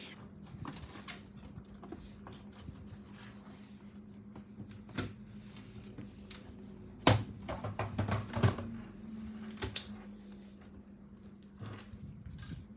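Plastic clicks and taps as the trackpad module is pressed into an Asus X453M laptop's plastic palmrest. A sharp knock comes about seven seconds in, followed by a quick cluster of clicks. A steady low hum runs underneath.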